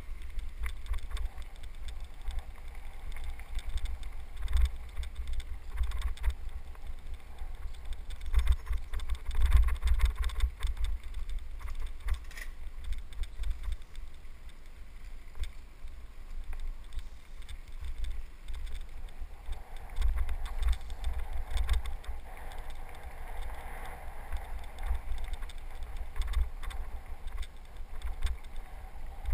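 Bicycle riding down a dirt trail heard from a helmet camera: wind buffeting the microphone as a heavy, uneven low rumble, with scattered knocks and rattles from the bike rolling over the rough dirt.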